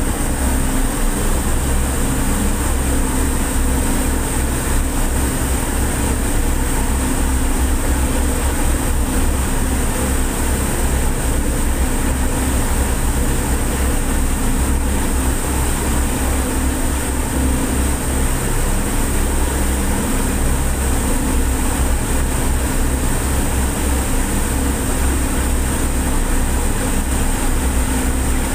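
A ferry's engines running steadily with a low drone, under the even rush of the churning wake at the stern.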